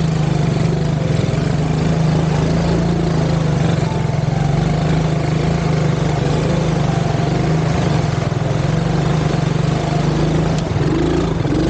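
Small quad ATV engine running at a steady low note as the machine wades slowly through muddy water.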